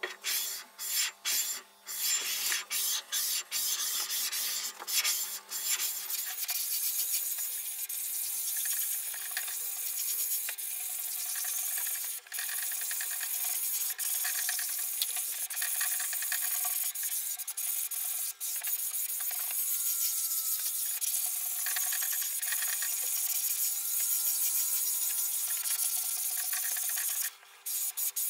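An iron parallel bar scraping back and forth over a metal surface plate with abrasive, lapping the plate flat; a gritty rasping rub. The strokes are short and broken for the first few seconds, then run almost without a break, stopping briefly near the end.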